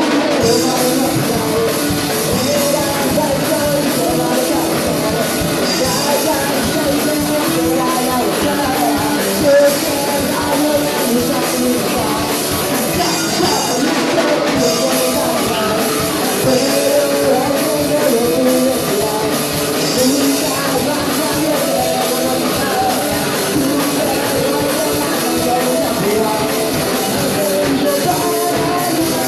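Rock song with drum kit, guitar and singing.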